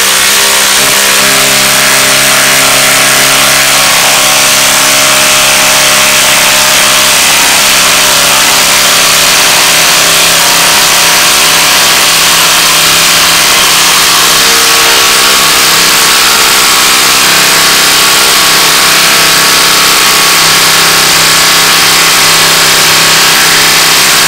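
Ryobi P238 18V brushless impact driver hammering without a break as it drives a long half-inch lag screw into a wooden log under heavy load.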